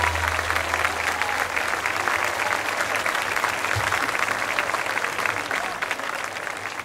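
Audience applauding as the band's last low note dies away in the first second; the clapping thins out near the end.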